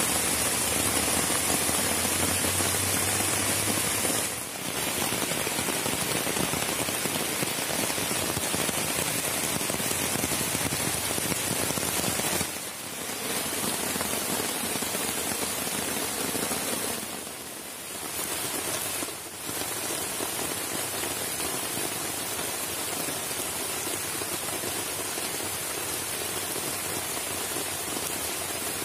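Steady rain falling on the rainforest, an even hiss that dips briefly in level three or four times.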